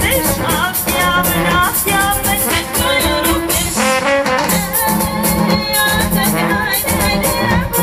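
Live Balkan brass-band music: brass melody over a steady drum beat and bass, with a fast run of repeated notes about four seconds in, heard from within the concert crowd.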